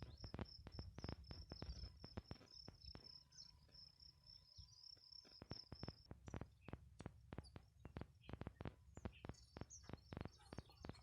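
Faint footsteps of someone walking barefoot over sand, with an insect's high, steady chirping that stops about six seconds in.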